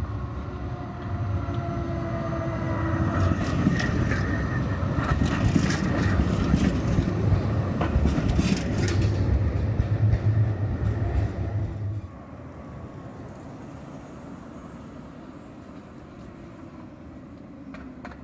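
An Oslo tram passing close by on street track, with a motor whine falling in pitch and wheels clicking over rail joints, loudest in the middle. The sound cuts off suddenly about twelve seconds in, leaving quieter street hum.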